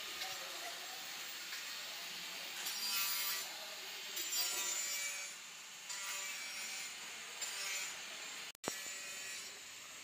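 Shovel scraping into a pile of sand and gravel in several separate strokes, each under a second long.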